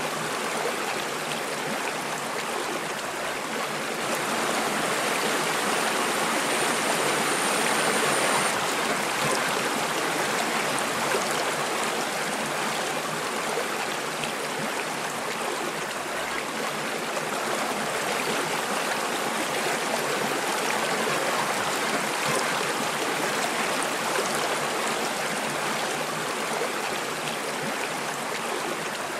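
A flowing river running steadily.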